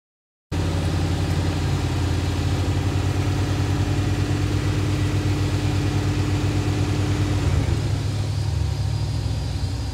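Off-road buggy engine running steadily, cutting in abruptly about half a second in and easing off slightly near the end.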